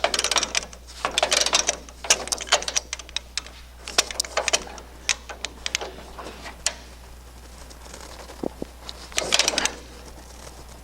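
Ratchet wrench clicking in short bursts of rapid clicks as the strut rod nuts are torqued down.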